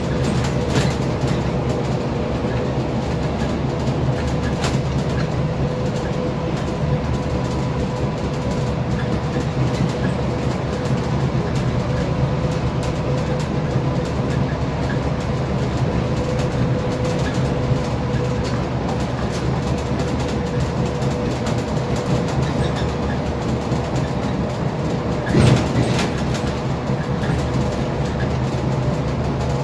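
Steady cabin noise of a Scania K320IA bus on the move at highway speed: engine drone and road rumble with light rattles. A single louder thump comes about 25 seconds in.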